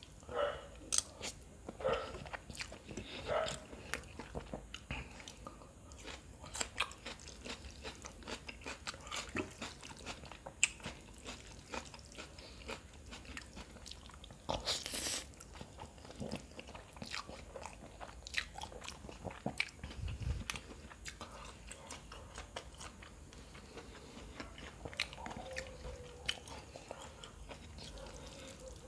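Close-up mouth sounds of someone eating noodles: chewing and slurping, with many short clicks. One louder hissing sound about halfway through and a dull low thump a few seconds after it.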